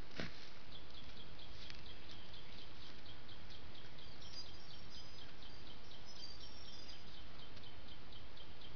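Steady trail-camera hiss under a high, even ticking call repeating about four times a second, with a few short high chirps in the middle. There is a single click about a quarter second in.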